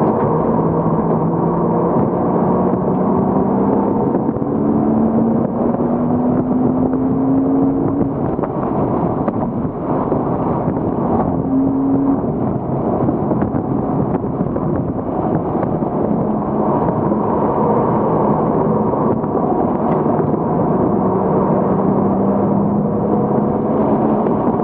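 Porsche Cayman S 3.4-litre flat-six engine running hard on track, heard from inside the cabin. Its pitch climbs slowly under load several times, dropping back between the climbs as the car shifts or brakes for corners.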